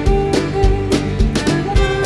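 Background country music with fiddle and guitar over a steady beat.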